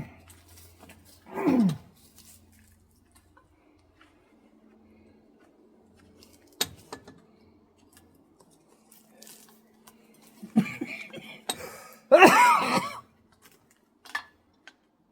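A man's grunts of effort while working on the motor: a short falling grunt near the start and a louder, longer strained groan near the end. A single sharp click or knock comes in between.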